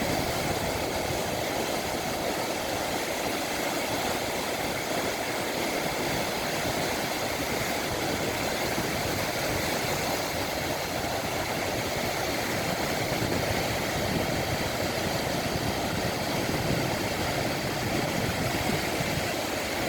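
Ocean waves and wind: a steady rushing noise with a low rumble underneath and no distinct breaks between waves.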